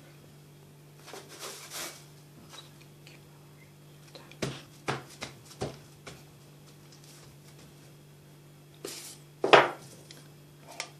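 Metal knife and spoon scraping and clinking against an open tin of boiled condensed milk and the crisp wafer cake layers: soft scrapes about a second in, a handful of sharp knocks around the middle, and the loudest clink near the end. A faint steady low hum lies underneath.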